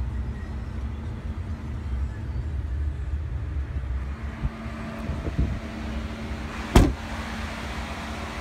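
A low rumble while moving through the pickup's cab, then one loud thump about seven seconds in as the door of the 2014 Ford F-150 Lariat is shut, followed by a steady low hum.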